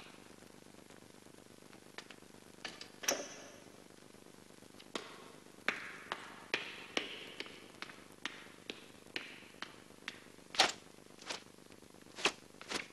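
Footsteps on a hard floor: sharp taps, a few at first, then a steady walking pace of about two steps a second through the second half.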